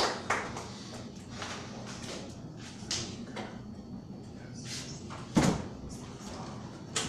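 Clapping dies away at the start, then a quiet room with scattered small clicks and knocks and one louder thump about five seconds in.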